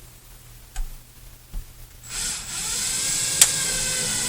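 Power drill starting up about two seconds in and running steadily with a motor whine, driving a screw to fix a detector's mounting plate to the wall. A couple of light clicks come before it, and a sharp click comes partway through.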